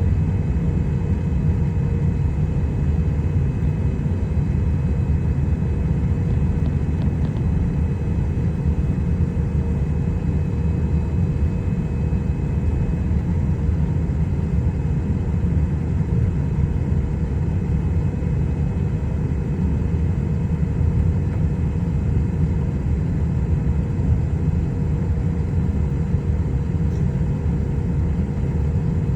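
Boeing 777 jet engines running, a steady low rumble with several thin, steady whining tones over it.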